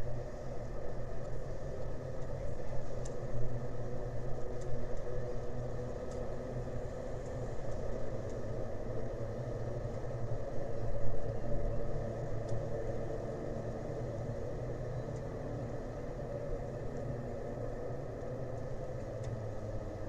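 Steady low engine rumble, swelling and easing a little in the first half before it settles into an even drone.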